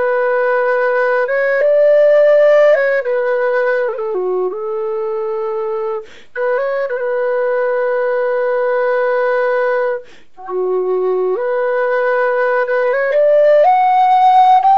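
Music: a slow solo melody on a flute-like wind instrument, long held notes moving step by step, with two short pauses about six and ten seconds in.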